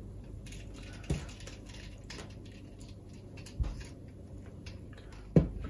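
Loose coils of insulated wire being handled on a wooden worktop: faint light ticks and rustles, with a few short knocks, about a second in, near four seconds and near the end.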